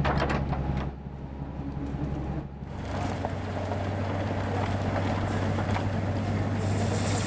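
A few knocks over a steady low hum, then, about two and a half seconds in, a railway rotary snowplow at work: a steady engine drone under the rushing noise of snow being thrown.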